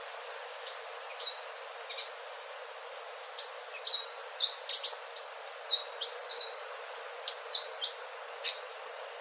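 Indigo flycatcher (sikatan ninon) singing: a fast, jumbled run of short high-pitched notes and quick pitch sweeps, pausing briefly a little after two seconds in, over a steady hiss.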